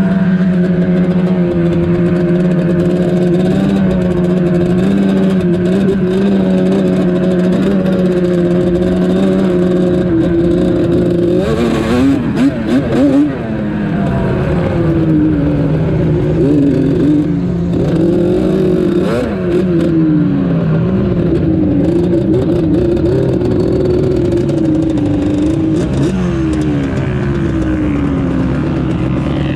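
Quad engine under way: steady at high speed at first, then revving up and down again and again from about eleven seconds in, with a brief drop around thirteen seconds.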